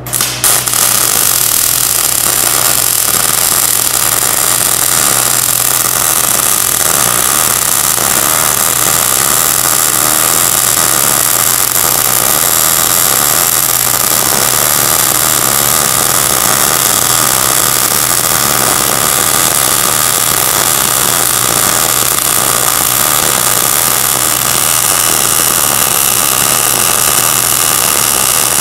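MIG welding arc burning steadily as ER70S-6 solid wire, 0.045 in, is fed into the joint between a hydraulic cylinder rod and its rod eye; the arc strikes right at the start.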